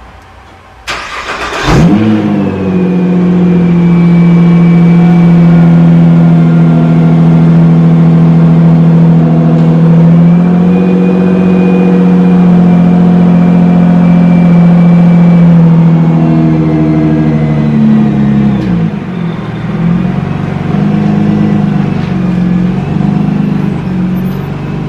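Nissan GT-R R35's twin-turbo V6 cold start: a click and brief cranking, then the engine catches with a quick rise in revs and holds a steady high cold idle. About eighteen seconds in the revs drop to a lower idle that wavers up and down.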